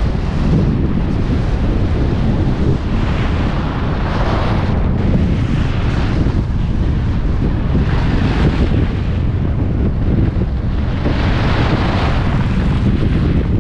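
Wind buffeting a GoPro action camera's microphone during a fast ski-run descent: a loud low rumble throughout, with several swells of scraping hiss as edges carve turns on groomed snow.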